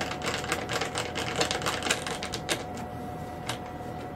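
Screwdriver driving a wing-mounting screw into the plastic wing root of a foam RC jet: a run of rapid clicks that thins to a few single clicks after about two and a half seconds.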